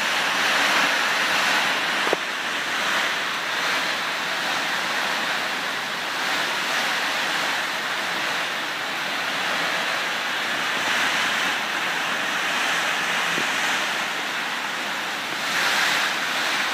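Heavy rain pouring down, a steady dense hiss that swells briefly near the end.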